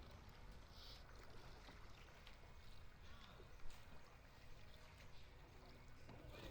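Faint water ambience with a low wind rumble on the microphone, and one sharp click about three and a half seconds in.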